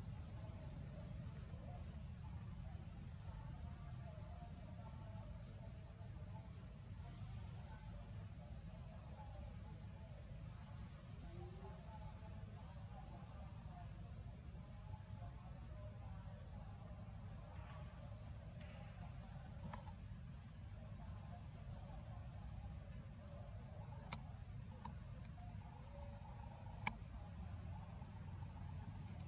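Insects singing in a steady, unbroken high-pitched drone, over a low rumble, with two short clicks near the end.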